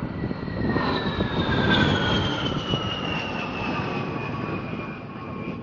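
A-10 Warthog jet flying past low, its twin General Electric TF34 turbofans giving a whine over a jet rush. The whine falls steadily in pitch as the aircraft passes and moves away; it is loudest about two seconds in, then fades.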